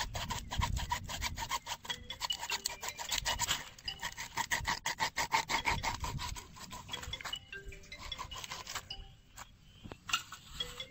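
Kitchen knife scraping along a raw fish on a log, scaling it in rapid rasping strokes, several a second; the strokes stop about nine seconds in and start again near the end.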